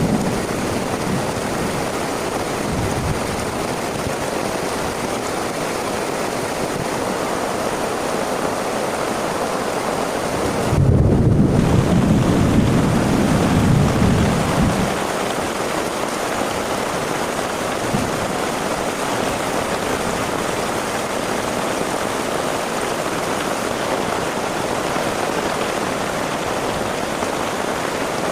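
Heavy rain falling steadily. About a third of the way in, a low rumble of thunder sets in suddenly and rolls for about four seconds.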